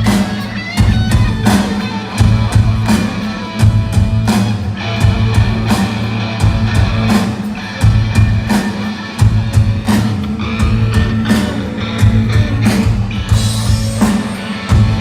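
A group of drummers playing a steady beat along with a recorded rock track with electric guitar and bass.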